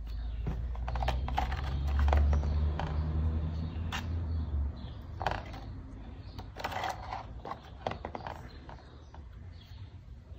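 Scattered small clicks and knocks of a plastic car door lock module being handled and turned in the hands, over a low rumble that stops about halfway through.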